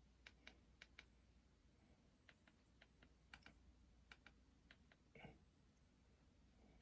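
Near silence with faint, irregular light clicks: taps on a handheld electronic device while navigating its menus. One slightly longer soft sound comes about five seconds in.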